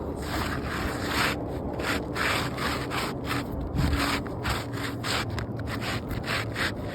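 Asphalt roof shingle being pried and pulled loose: repeated quick scraping and rubbing strokes, about three a second.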